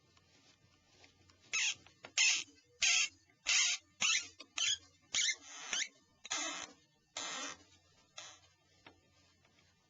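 Torx Plus size 6 screwdriver turning the small screws out of a Nokia 5140's chassis: about ten short scraping strokes, one every half second or so, starting a second or two in and stopping near the end.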